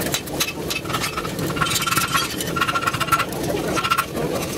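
Metal clinking and ringing at the anvil during forging, with several short rings and irregular sharp clicks over a steady low hum.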